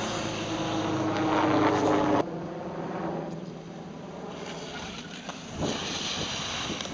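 Wind blowing on the camera microphone: a loud rumbling noise that builds, then cuts off abruptly about two seconds in, followed by a softer hiss.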